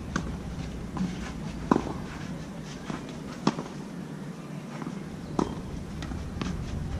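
Tennis rally on a clay court: racket strings striking the ball with a sharp pop every two seconds or so, with weaker ticks of ball bounces and footsteps between the hits.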